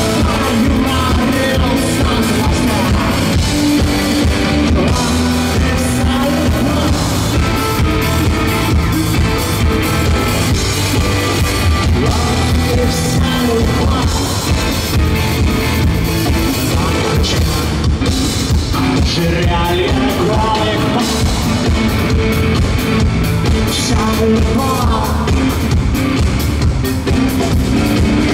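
Live rock band playing through an arena sound system: a male lead singer over drums and guitar, steady and loud.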